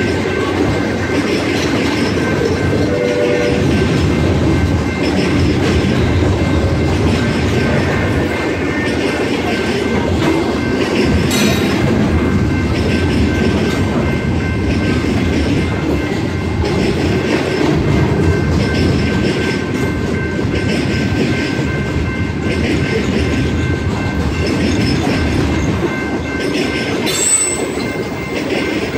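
Loaded freight train of covered hopper cars rolling steadily through a grade crossing, its wheels rumbling and clattering continuously, with two brief sharp knocks, one about a third of the way in and one near the end. Under it, the crossing's General Signals type-2 electronic bell rings steadily; the crossing's mechanical bell is dead.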